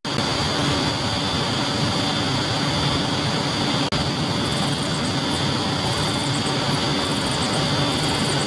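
Small electric motor running steadily, a whirring hum with a high whine, as from the toy fuel dispenser's pump. The sound breaks off for a moment about four seconds in and then carries on unchanged.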